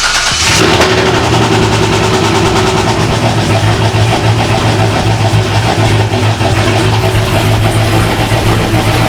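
C5 Corvette's LS V8 with a BTR Stage 3 cam, idling just after its first start-up through catless long-tube headers and a Corsa Xtreme exhaust, loud and steady with a choppy, uneven beat. The crew takes the roughness for a misfire.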